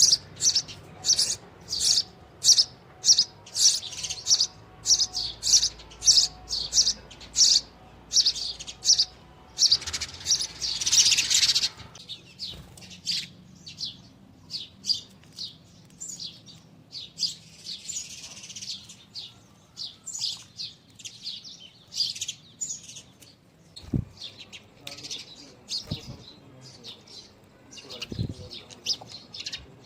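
Sparrow chirping over and over, about two short, high chirps a second. The chirps are loud for the first dozen seconds, then fainter and more scattered, with a few soft low thumps in the later part.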